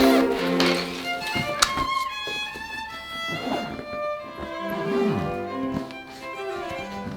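Background music led by violin and other bowed strings, with a sharp click about a second and a half in and a few short noisy swishes laid over it.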